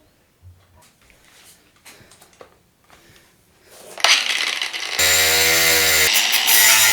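A few small metallic clicks and taps, then about four seconds in a power tool starts up loudly and runs steadily with a motor whine, cutting a bike part down to length.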